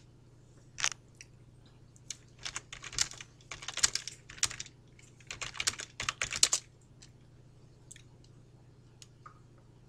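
Computer keyboard typing: a single keystroke, then quick irregular bursts of key clicks for about four seconds, stopping about two-thirds of the way through. A faint steady low hum runs underneath.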